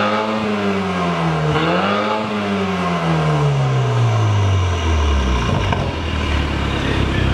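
BMW F10 528i engine revved through an aftermarket Fi Exhaust system (catless downpipe, valved cat-back muffler, quad tips). The revs dip, climb again to a peak about two seconds in, then fall slowly and settle into a steady idle from about five seconds in.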